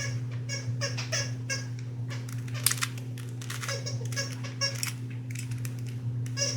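Stickered Rubik's brand cube being turned by hand: a run of plastic clicks and clacks, several a second, from a stiff mechanism that is hard to turn. A steady low hum runs underneath.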